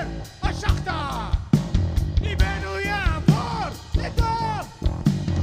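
Rock band music with no words sung: drums keeping a steady beat under a bass line, and a lead melody whose notes slide and bend in pitch.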